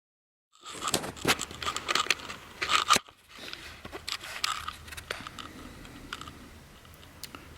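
Handling noise: a dense run of crackling, crinkling clicks for about two and a half seconds, then quieter scattered clicks and rustling.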